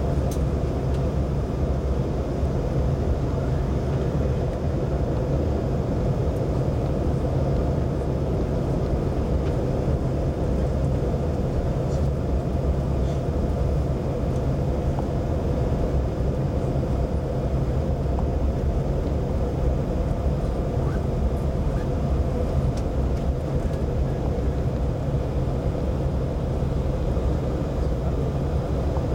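Steady cabin noise of a jet airliner descending on its landing approach: engine and airflow rumble heard from inside the cabin, with a low hum.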